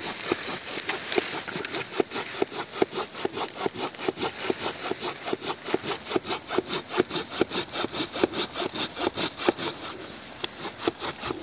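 Silky Gomboy Curve folding pull saw cutting through a fallen log, rasping back and forth in steady, even strokes at about three a second.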